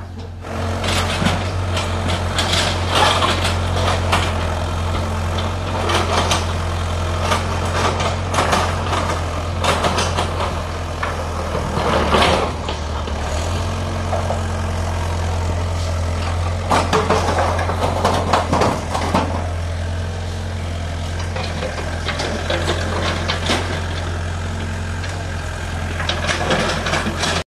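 Hyundai wheeled excavator's diesel engine running with a steady low drone, with repeated bouts of clatter and scraping as it digs.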